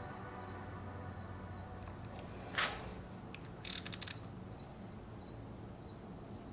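Insects chirping steadily in a fast, even pulse. A single sharp knock sounds about two and a half seconds in, and a quick run of clicks follows about a second later.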